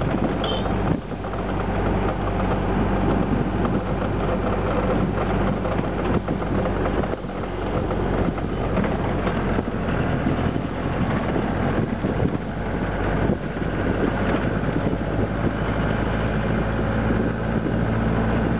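Truck bus engine running steadily on the move, heard from the open-sided wooden passenger body with road and wind noise, and a few knocks.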